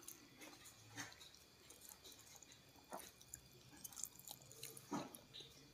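Faint eating sounds of rice and fish eaten by hand: fingers picking food from the plate, then soft chewing. A few small clicks come about one, three and five seconds in.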